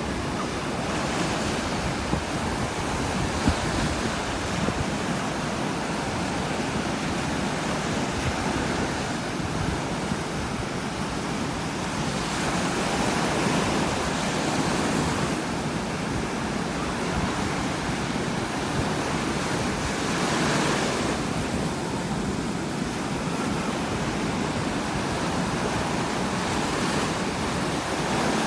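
Strong ocean surf crashing onto the shore, a continuous rushing wash that swells as waves break, with some wind on the microphone.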